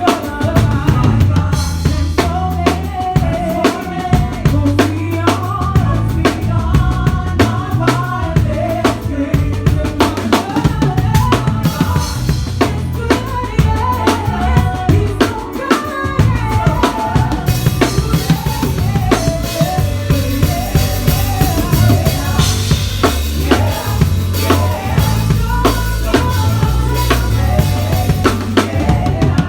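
Drum kit played live with a church band: kick drum, snare and rimshots in a steady groove over a bass line and a melody. About halfway through, the cymbals open up and the sound grows brighter and fuller.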